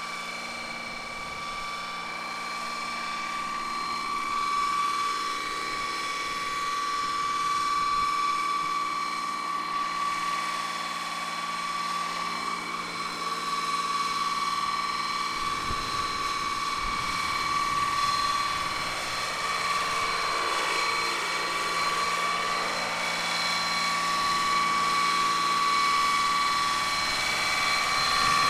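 Large scale radio-controlled Boeing CH-47 Chinook tandem-rotor helicopter in flight: a steady high whine from its drive over rotor noise, growing louder near the end as it comes close.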